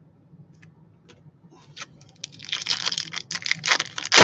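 Foil trading-card pack wrapper being torn open and crumpled: a few faint clicks, then from about halfway in a dense crinkling that grows loudest near the end.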